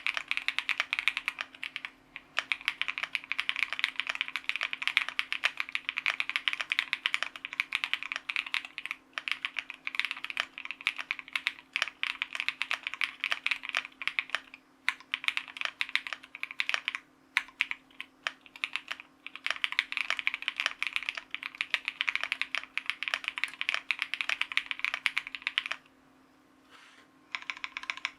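Fast, continuous typing on a Meow65 mechanical keyboard with Cobalt Pom switches lubed with Krytox 205g0, mounted on a polycarbonate plate, with Cherry clip-in stabilizers. The keystrokes come in a dense stream with a few brief breaks and a longer pause near the end before typing starts again.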